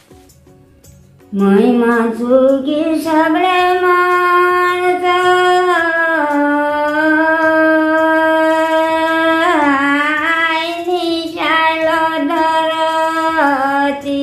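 An elderly woman singing unaccompanied in the thadi bhaka folk style of western Nepal. About a second in, her single voice slides up into long, drawn-out held notes, broken by a few quick ornamental turns.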